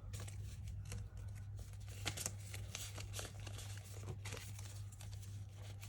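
Hands rustling and shuffling Australian polymer banknotes and their envelopes, in short scattered crinkles and taps, over a steady low hum.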